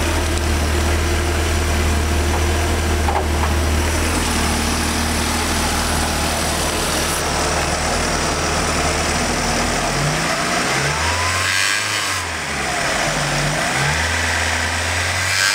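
1990 VW Jetta GLI's 2.0-litre 16-valve four-cylinder engine idling steadily, then revved up and back down twice in the last few seconds, a whine rising and falling with each blip. The owner hears a noise from the engine only at about 3,000 rpm and is trying to find where it comes from.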